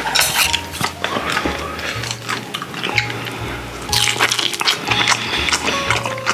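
Close-miked eating of grilled mackerel: wet chewing, lip smacks and mouth clicks, over background music with a steady bass line.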